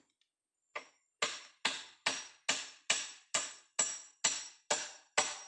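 Hammer blows on the timber of a hut's roof frame. There is one light tap, then ten steady blows at about two a second.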